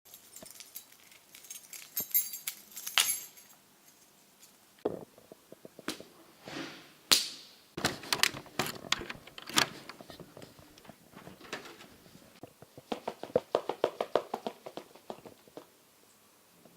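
Assorted foley sound effects made by hand: a high metallic jingle near the start, scattered clicks and knocks, then a quick run of even taps about thirteen seconds in.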